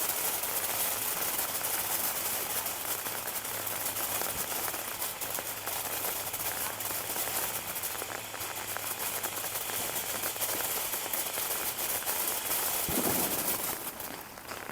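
Steady hissing crackle of a ground fountain firework spraying sparks, which dies down near the end.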